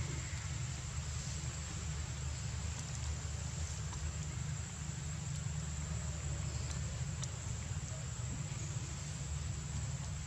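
Steady outdoor background noise: a low rumble under an even hiss, with a constant high-pitched whine and a few faint clicks.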